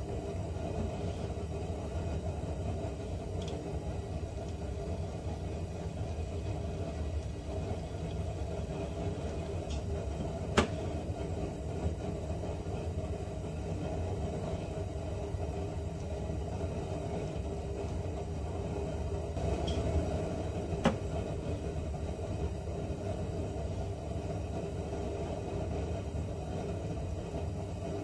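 A steady low machine rumble, with two sharp clicks, one about ten seconds in and another about twenty-one seconds in.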